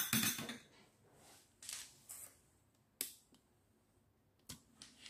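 A few faint, short clicks and soft rustles from a spoon and glass bowls being handled on a metal serving tray.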